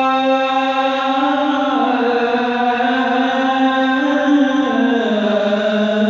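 A man's voice chanting the adhan (Islamic call to prayer), holding one long, unbroken melismatic note on 'hayya 'ala l-falah'. The pitch steps down a few times and drops lowest about five seconds in.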